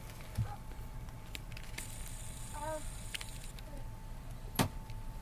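Steady low rumble of indoor background ambience with a faint steady high whine, a brief distant voice about two and a half seconds in, and a sharp knock near the end, which is the loudest sound.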